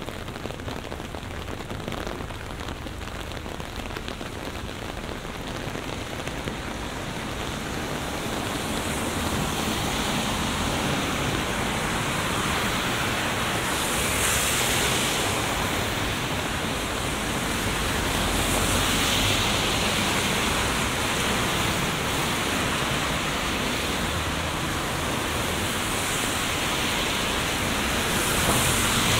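Heavy rain pouring down, getting heavier about eight seconds in and then swelling and easing in waves.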